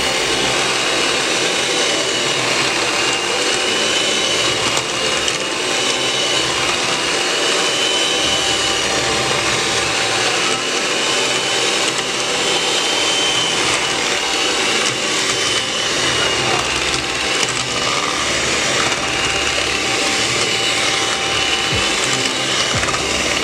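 Rival electric mixer's motor running steadily, its beaters churning through cornbread batter, with a high whine that wavers slightly in pitch.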